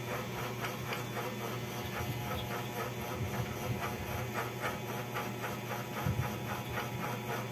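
Fingers massaging a creamy hair mask through wet hair: soft, repeated squishing and rubbing, about three or four small sounds a second, over a steady low hum and hiss.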